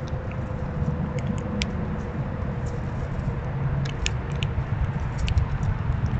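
Squirrels foraging in dry leaves and spilled seed close to the microphone: scattered small sharp clicks and crackles, in clusters, over a steady low rumble.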